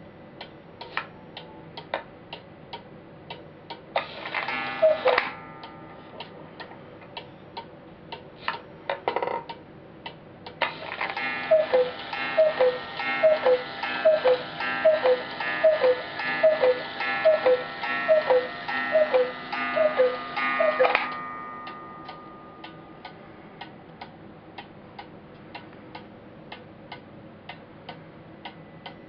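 Wooden 8-day cuckoo clock ticking steadily. About four seconds in it gives a single cuckoo call, and from about eleven seconds to twenty-one it strikes the hour with a long run of two-note falling cuckoo calls, roughly three every two seconds, over a ringing that dies away after the last call.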